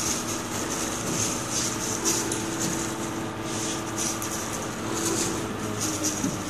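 Rubber wiper blade scraping and swishing in short irregular strokes as it spreads epoxy resin over cracked solar-panel glass, over a steady low hum.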